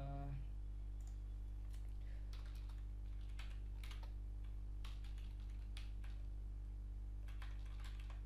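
Computer keyboard typing: irregular, scattered keystrokes over a steady low electrical hum.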